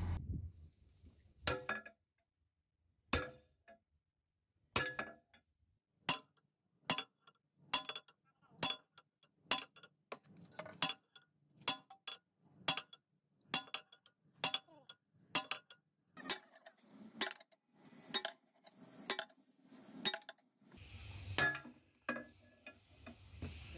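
Gears and shafts of a vibratory hammer's open gearbox turned over by hand with a steel rebar bar in a shaft's splined bore: a long series of sharp metal clinks, a few spaced out at first, then about one a second. A low rumble and a hiss join near the end.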